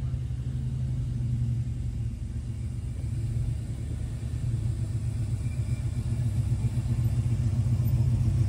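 The engine of a red early-1970s Dodge Charger rumbling deeply as the car rolls slowly across grass, growing louder as it approaches.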